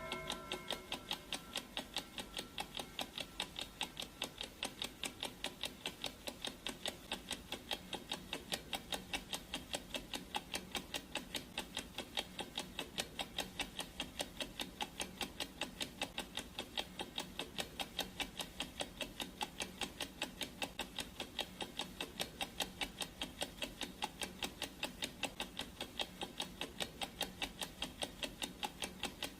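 Clock ticking sound effect: steady, evenly spaced ticks that keep an unbroken rhythm. At the very start the last of a ringing tone fades out.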